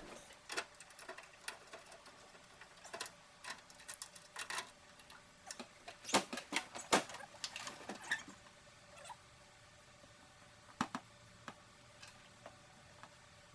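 Faint, irregular clicks and snips of hand work cutting and handling convertible-top material and seal pieces, coming thickest about six to eight seconds in and thinning out after.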